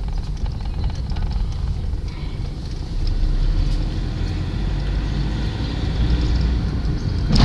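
Car cabin noise while driving: a steady low rumble of engine and road, growing louder about three seconds in.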